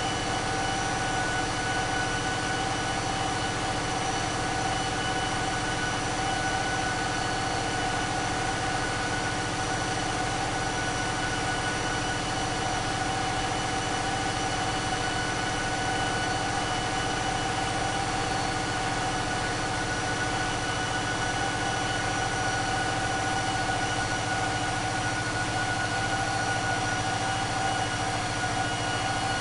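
Caterpillar 3516B V16 diesel engine running steadily on an engine dyno, a heavy low drone with a steady high whine over it and no change in speed.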